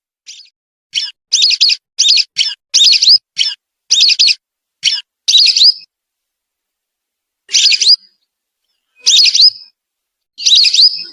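Whistling duck (belibis) calls, played as a lure recording. Short, high whistled notes come in a quick run of about a dozen over the first six seconds, then three single calls about a second and a half apart.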